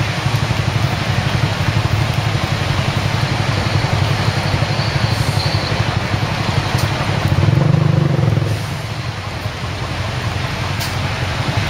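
Strong typhoon wind buffeting the microphone: a loud, rough, steady rumble that eases a little about eight and a half seconds in.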